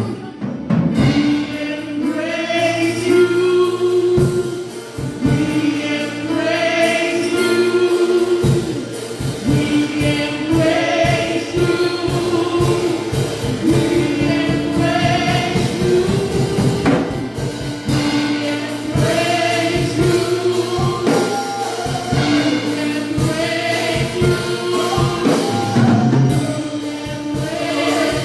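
Gospel choir singing a worship song with long held notes over instrumental accompaniment, with a steady percussive beat through the middle.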